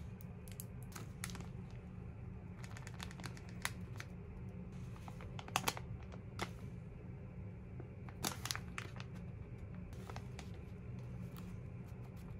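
Plastic, foil and paper amenity packets crinkling and rustling as they are picked up and handled, in scattered sharp crackles, a few of them louder, over a steady low hum.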